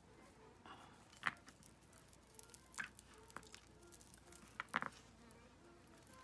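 A housefly buzzing on and off close to the microphone, with a few small sharp clicks of jewelry being handled: about a second in, near three seconds and near five seconds.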